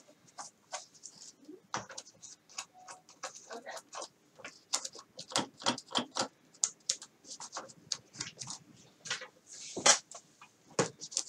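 Irregular small clicks, taps and rustles of hands handling small parts on a workbench, with one louder knock near the end.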